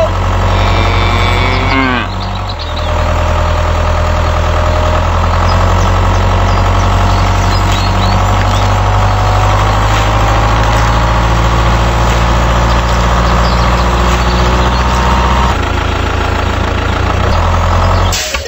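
A heavy truck engine idling steadily with a deep hum that shifts abruptly a couple of times.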